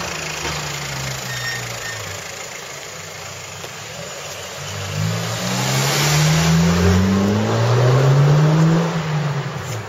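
A car engine running in the street, then accelerating, its pitch rising in two sweeps as it grows louder, loudest in the second half and dropping away just before the end, with tyre hiss on the road.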